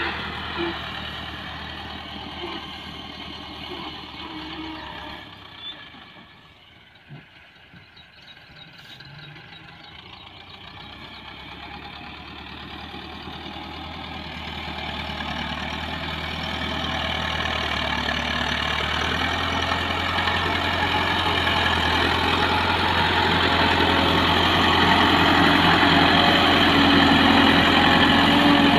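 Massey Ferguson 375 tractor's diesel engine running steadily as it works soil with its front blade. It fades as the tractor moves away, then grows steadily louder over the second half as it comes back and pushes earth up into a trolley.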